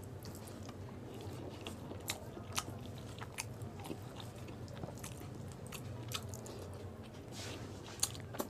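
A person chewing mouthfuls of chicken biryani eaten by hand, with many short wet mouth clicks and smacks scattered throughout, over a steady low hum.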